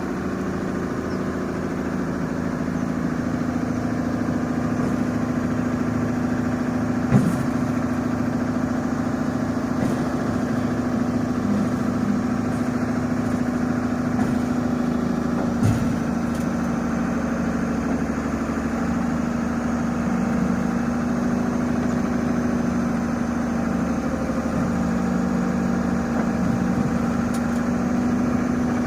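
A heavy machine's diesel engine running steadily at an even pitch, with two sharp knocks, about seven and sixteen seconds in.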